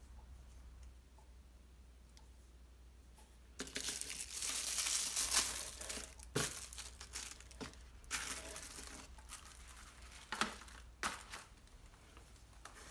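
Plastic knife packaging crinkling and tearing as it is handled and pulled off, starting a few seconds in. After the longest stretch come shorter bursts of crinkling and a few sharp clicks.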